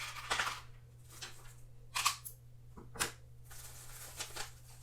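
Handling noise from unpacking a shelf kit: a few short rustles and clicks, sharpest just after the start, about two seconds in and about three seconds in, over a steady low hum.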